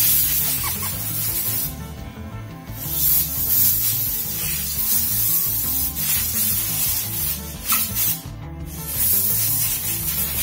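Compressed air hissing in long blasts with short breaks, blowing dust out of the disassembled drill's parts.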